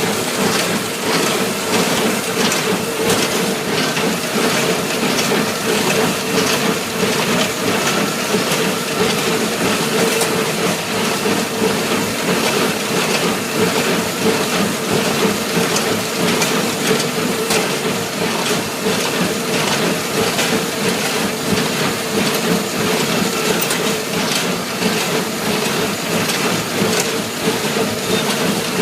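New Holland BC5070 small square baler running steadily while baling hay: continuous mechanical clatter and clicking from the working baler over a steady hum.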